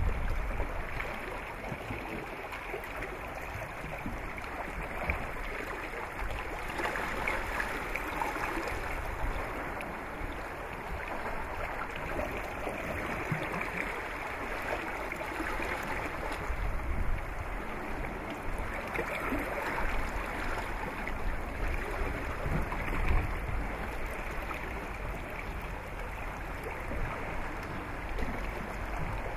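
Steady wash of water and light wind around sailing luggers on the sea, with no distinct events.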